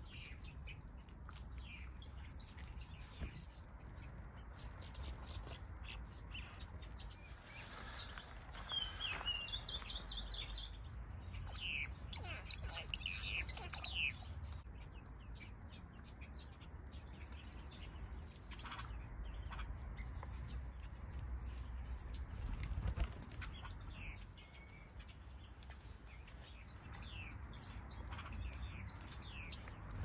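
Small aviary finches and softbills chirping and calling: short, high chirps scattered throughout, with a busy flurry about ten seconds in, over a steady low rumble.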